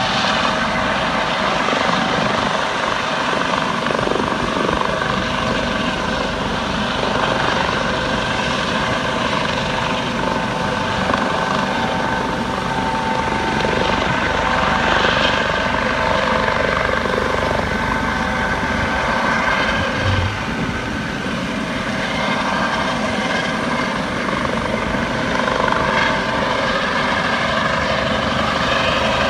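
US Coast Guard helicopter flying low over the surf, its rotor and turbine running steadily.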